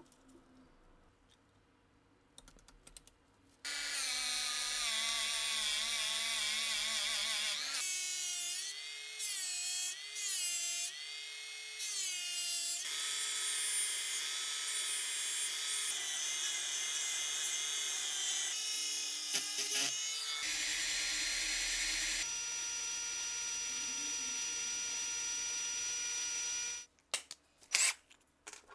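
High-speed rotary tool with a cut-off disc cutting into the corroded grip of a Walther P38 pistol: a steady high whine that starts about four seconds in, its pitch dipping and wavering as the disc bears on the material over several passes. It stops near the end, followed by a few sharp clicks.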